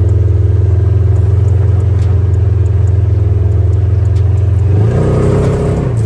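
Side-by-side UTV's engine running steadily as it drives along a dirt trail, a loud low drone heard from inside the open cab. About five seconds in, the engine note wavers and the ride rattles more.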